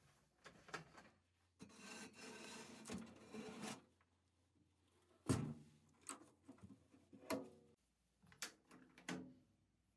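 Handling noises at a benchtop sandblast cabinet as a cast iron tree stand is loaded onto its mesh grate: a couple of seconds of scraping and rubbing, then a sharp knock about five seconds in and a scatter of short clicks and taps from the cabinet door, its latches and the rubber glove ports.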